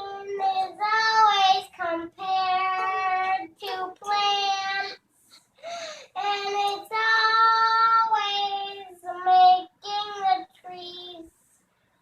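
A young girl singing a song of her own making, in short held phrases with brief pauses between them.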